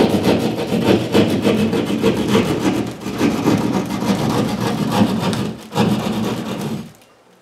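Heavy hand drywall saw cutting through sheetrock in quick back-and-forth strokes, stopping abruptly near the end.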